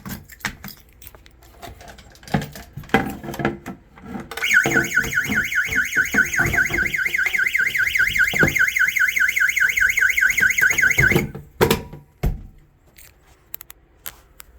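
A fire alarm sounder sounds a rapid warbling tone that sweeps up and down several times a second. It starts about four seconds in, runs for about seven seconds and cuts off suddenly. Clicks and knocks come before and after it.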